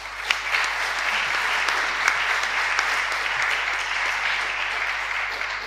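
Audience applauding: many hands clapping together, easing off slightly near the end.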